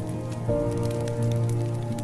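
Soft background music of held chords, changing about half a second in, over the scattered crackle and pops of a wood fire burning in an old wood-burning stove.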